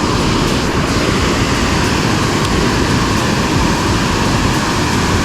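Loud, steady rush of water pouring through the lake spillway.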